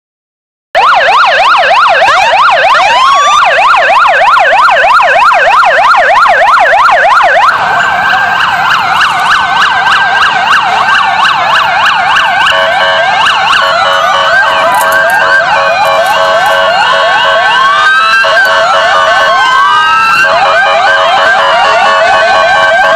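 Emergency sirens from police motorcycles leading a line of fire engines. A fast yelp sweeping up and down about four times a second starts about a second in; from about seven seconds several sirens overlap, slower rising and falling wails mixed with bursts of rapid yelp.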